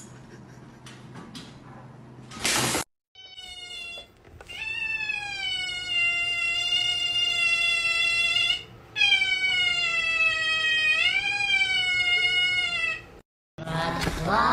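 An otter calling in long, high, drawn-out cries: a few short rising squeaks, then two long calls of about four seconds each, the second swooping up in pitch partway through. Before it, a brief loud scuffling noise.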